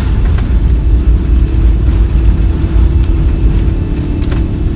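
Airbus A380's Rolls-Royce Trent engines at takeoff power, heard from inside the cabin on the takeoff roll: a loud, steady deep rumble with a steady hum over it and a few brief knocks.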